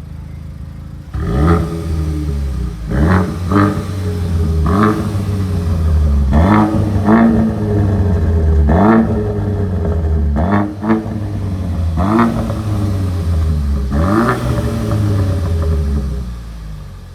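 Opel Astra J OPC's turbocharged 2.0-litre four-cylinder breathing through an aftermarket exhaust, running at idle and then revved in about ten quick blips, each rising and falling in pitch, before dropping back to idle near the end.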